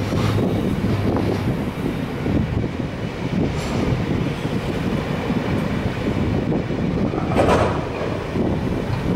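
Loaded HYA coal hopper wagons of a freight train rolling past at close range: a steady rumble of wheels on rail, with a brief louder burst of noise about seven and a half seconds in.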